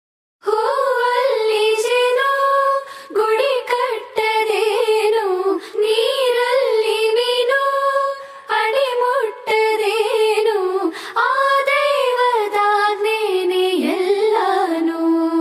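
A high solo voice sings a wordless, ornamented vocal line in flowing phrases with short breaks, holding a long note near the end. It is the unaccompanied-sounding opening of a Kannada devotional prayer song to Sharada.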